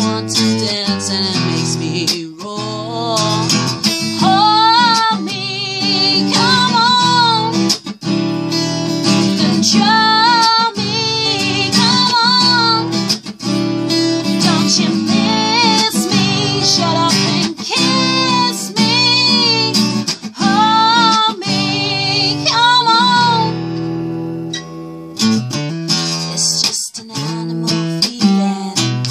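A woman sings with wavering held notes over an acoustic guitar. Her voice stops about five seconds before the end, leaving the guitar playing alone.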